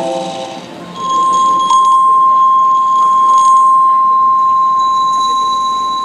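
A pure electronic tone from a light-and-sound art installation comes in about a second in and holds steady, with a fainter higher tone joining near the end. A chord of lower tones fades out just before it.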